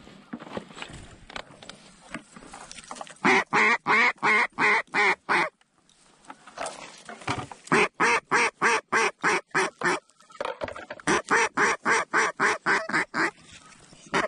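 Mallard duck call blown by a hunter: loud, evenly spaced quacks at about three a second, in three runs with short pauses between, starting about three seconds in.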